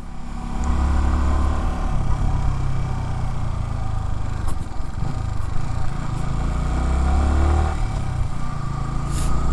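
Yamaha R15's 155 cc single-cylinder engine running, its speed shifting a little now and then, with the ticking the rider likens to a noisy cam chain on a nearly new bike.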